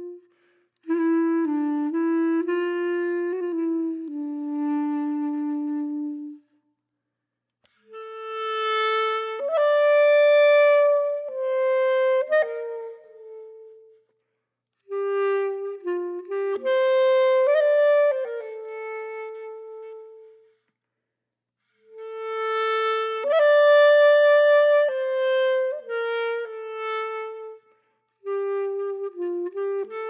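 Background music: a slow solo melody on one instrument, played in phrases of several seconds with short silences between.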